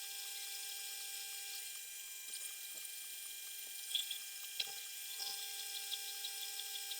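Metal lathe running steadily while a carbide tool takes a light cut in aluminium: a constant motor whine and hiss, with a few light clicks about four to five seconds in.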